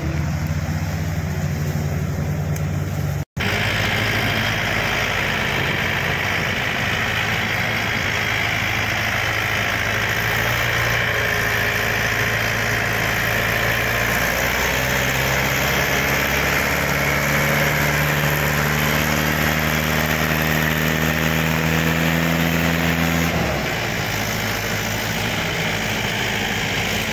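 Tractor diesel engines, a Mahindra 575 DI among them, running under load while pulling a heavily loaded sugarcane trolley out of soft ground. The engine note climbs slowly through the middle and then drops sharply near the end as the throttle comes off.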